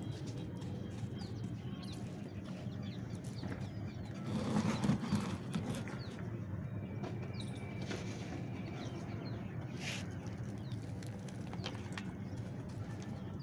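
Hands pressing and crumbling gritty soil mix and small stones in a bonsai tray: soft scraping and small crackling clicks, loudest about four to five seconds in.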